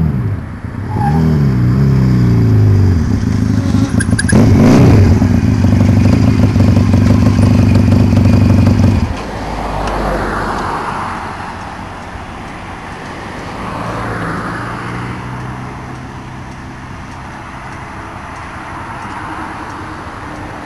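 Hunter Daytona 350 motorcycle with baffles cut out of its exhaust pipes: its pitch drops as it passes, then it revs up and down and runs loudly close by until it stops abruptly about nine seconds in. Quieter road noise follows, swelling twice as traffic goes by.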